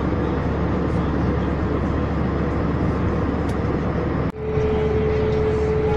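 Steady airliner cabin noise in flight: the rush of the engines and air conditioning. About four seconds in the sound drops out for a moment, and afterwards a steady hum at one pitch sits over the same rush.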